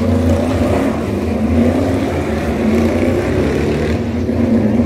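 EuroNASCAR stock cars' V8 engines passing one after another along the straight, a loud, steady engine sound without hard revving.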